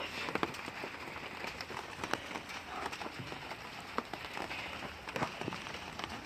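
Steady rain falling, with scattered individual drops tapping sharply on nearby surfaces.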